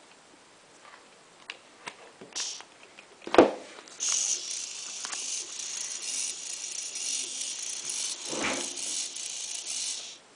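Several small hobby servo motors running together, their plastic gear trains giving a continuous rattling whir that starts about four seconds in and stops just before the end. Before that come a few light clicks, and there is a sharp thump about three and a half seconds in and a softer one near the two-thirds mark.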